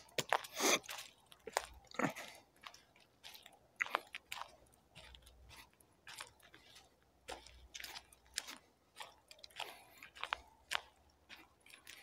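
Footsteps of a person walking on a dirt forest track, irregular soft crunches and scuffs on soil, grass and twigs.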